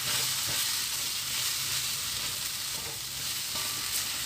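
Shrimp, snow peas and black fungus stir-frying in oil in a stainless steel wok, a steady sizzling hiss as a spatula stirs them, with a few light clicks of the spatula against the pan near the end.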